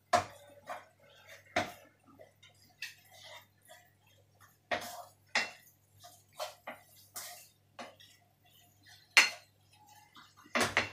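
Wooden spatula scraping and knocking against a metal frying pan while stir-frying minced chicken, in irregular sharp clicks and scrapes. A faint steady low hum runs underneath.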